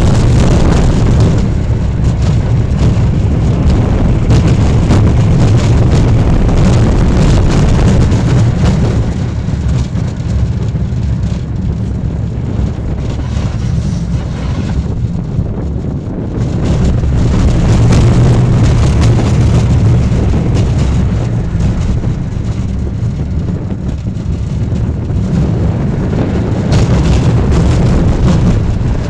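Steel roller coaster train running along its track, heard on board: a loud low rumble of wheels on the rails with wind rushing over the microphone. It eases off for a few seconds in the middle and again later before picking up.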